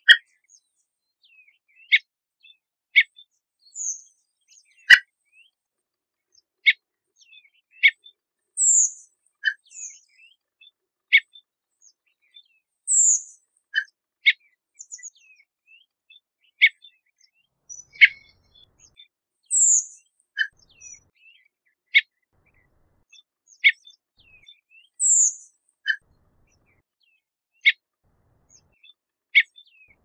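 Redwing thrush calling: a thin, high note sliding down in pitch every four to six seconds, among short, sharp chip notes.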